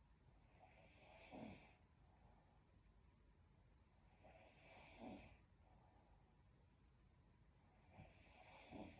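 A young woman snoring in her sleep: three faint snores about four seconds apart, each a breathy rasp that ends in a falling tone.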